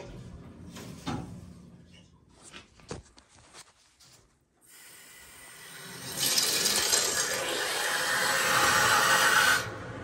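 A few handling clicks and rubs, then a rush of water that swells into a loud steady hiss about six seconds in and stops suddenly near the end: water flowing back into freshly repiped water heater lines as the water main is reopened.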